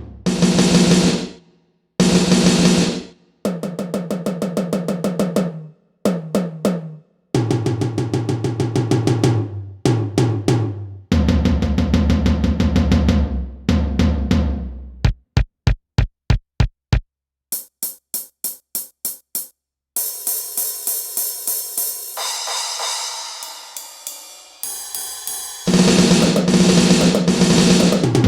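Turbo TDX-16 electronic drum kit played on its 'GM Power' preset: fast snare and tom fills with bass drum, a run of evenly spaced single hits, and cymbal crashes ringing out. The playing comes in short phrases broken by dead-silent gaps.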